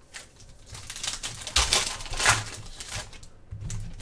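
Foil trading-card pack wrappers crinkling and cards being handled, with a rapid patter of small clicks and two louder rustles about one and a half and two and a quarter seconds in.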